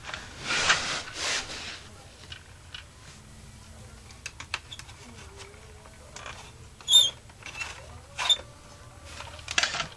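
Handling of a hollow plastic Mattel Shogun Warriors Godzilla figure: rustling as it is turned, then scattered light plastic clicks and knocks as its lever is pressed to push out the tongue, with one sharp click about seven seconds in.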